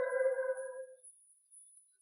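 A long bleat held at a steady pitch, fading out about a second in.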